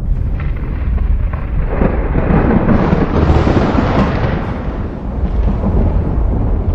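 Rolling thunder: a deep continuous rumble that swells to a louder, sharper peak about two seconds in and eases off again about five seconds in.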